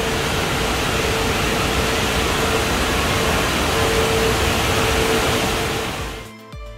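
Steady rushing noise of an indoor water park hall: running water from the pools and slides mixed with air handling, with a faint steady hum that comes and goes. About six seconds in it gives way to background music with a regular beat.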